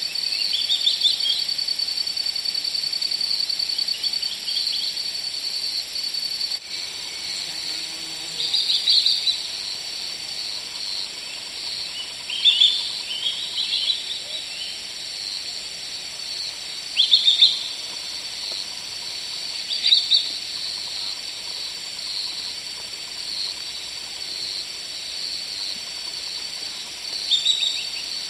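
Outdoor nature ambience: a steady high insect trill, louder for the first few seconds, under short bird chirps that come in brief clusters every few seconds.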